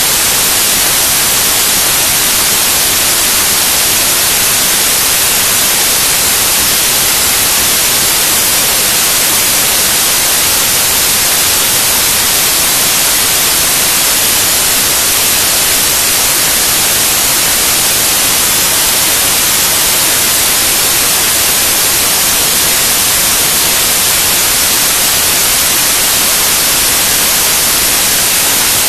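Loud, steady white-noise static, a hiss heaviest in the treble, that never changes: raw computer data from a video file read back from a Mini DV tape as though it were sound.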